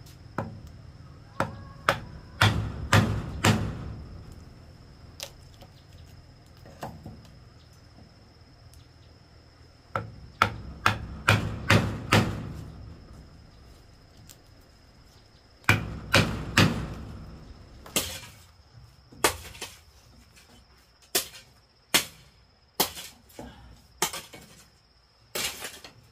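Hammer blows on wood, as when wooden wall boards are nailed up: bursts of several quick strikes with pauses between, then single strikes about a second apart near the end.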